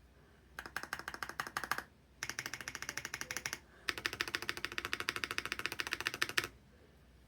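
Zoom75 mechanical keyboard with an aluminum plate and Gateron Type R switches, typed on fast in three runs of rapid, even keystrokes with short pauses between them.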